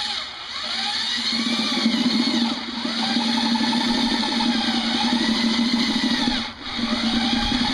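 Corded electric drill driving a 1-inch wood paddle bit through the thin steel side of a paint can, running steadily with a fast rattle as the bit bites the metal. It cuts out briefly near the end and starts again.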